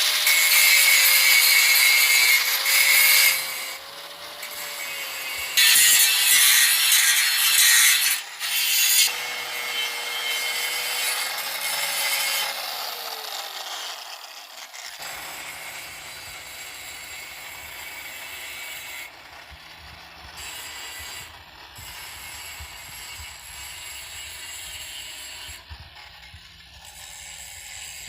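Angle grinder grinding down a weld on steel angle bar, in several long bursts of loud abrasive hiss. The motor's pitch dips and recovers as the disc is pressed into the metal, and the grinding grows lighter and quieter in the second half.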